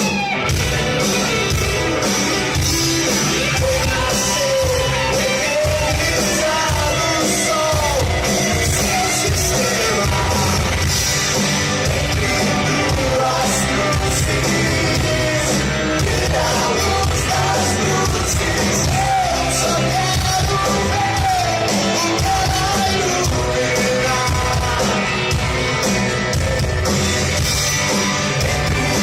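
Rock band playing live in a large hall, a lead singer's voice over full band accompaniment and a steady drum beat.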